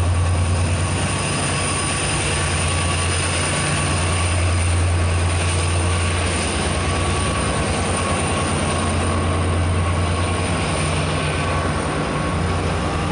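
Diesel locomotive idling: a steady low engine drone with a thin, constant high whine over it.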